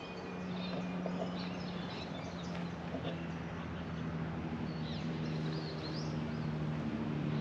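Outdoor ambience: scattered bird chirps over a steady low engine hum that slowly grows louder toward the end.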